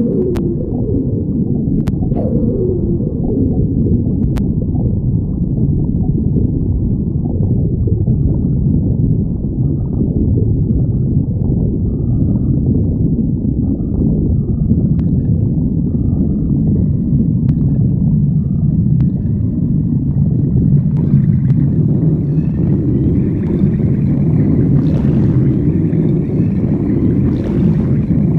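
A person's stomach growling and gurgling, picked up close: a continuous low rumble, with a few gliding, pitched growls near the start and busier gurgling in the last third.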